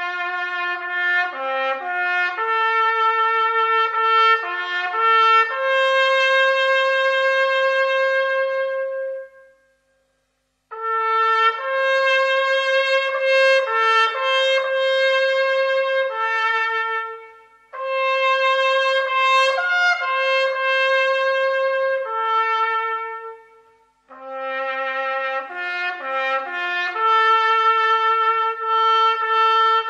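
Slow instrumental music led by a solo trumpet-like horn playing a melody in long phrases. It stops fully for about a second around ten seconds in, and briefly fades twice later.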